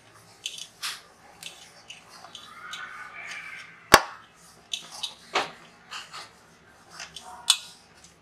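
Stiff dough being kneaded by hand in a stainless steel plate: irregular slaps and presses of the dough against the steel, the sharpest about four seconds in.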